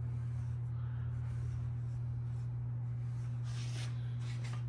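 Prep wipe rubbing over the bare aluminium rear face of an engine block: soft scrubbing, with two brief brushy strokes near the end, over a steady low hum.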